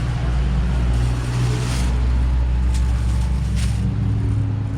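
A motor vehicle engine running steadily nearby, a low hum with a few faint clicks over it.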